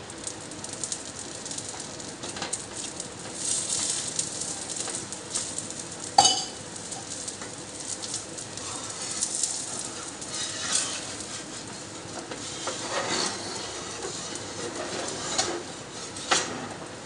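Oil sizzling under a dosa on a hot iron tawa, with a sharp metal clink about six seconds in and lighter taps and scrapes of a steel spatula against the pan, one more clink near the end.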